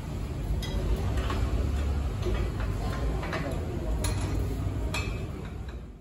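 A handful of short, sharp metallic clicks and clinks from hand tools and the axle while a motorcycle's rear wheel is taken off, over a steady low rumble.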